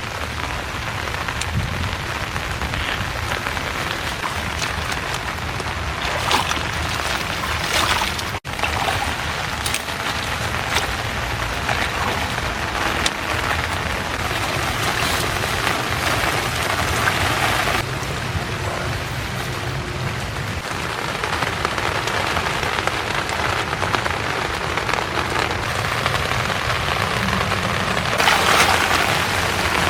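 Heavy rain falling steadily, with a brief dropout about eight seconds in.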